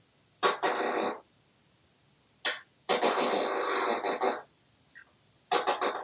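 African grey parrot making raspy, noisy vocal sounds rather than words. There is a short burst near the start, a brief one around two and a half seconds in, a longer one of about a second and a half, and a run of quick short pulses near the end.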